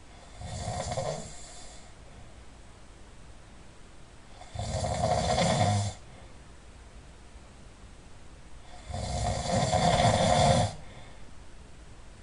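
A person snoring loudly in sleep: three snores about four seconds apart, each lasting a second or two, with a low rumble under a breathy hiss. The second and third snores are louder and longer than the first.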